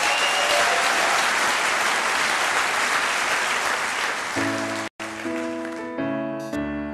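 Theatre audience applauding loudly for about four seconds. The applause gives way to a piano tune, which has a split-second gap in the sound just after it starts.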